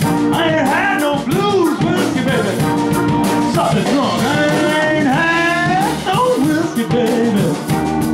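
Blues band playing live: a lead line of bending, sliding notes over a steady beat.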